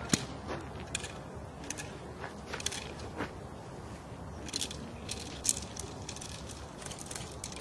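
A decoy's stick cracking and clattering as he brandishes it at the dog: irregular sharp cracks, several a second, the loudest just after the start and about five and a half seconds in.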